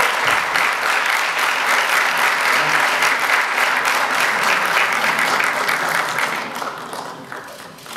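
Audience applauding, a steady crowd clapping that fades away near the end.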